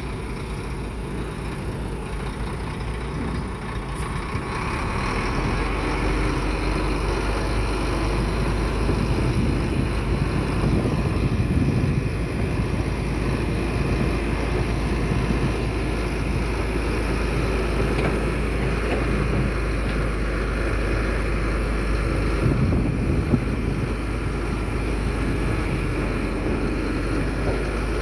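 Diesel engine of heavy earthmoving machinery running steadily, growing louder about five seconds in.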